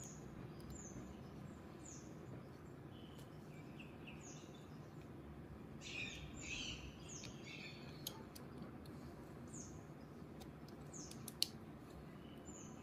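Faint birds chirping: short, high, falling chirps about once a second, with a busier run of chirping about six seconds in. A few sharp clicks come from a resistor's leads being pushed into a breadboard, the loudest near the end.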